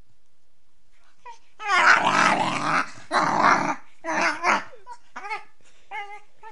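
Beagle puppy vocalizing in play: three loud, throaty growling bursts starting about a second and a half in, then several short high whines and yips.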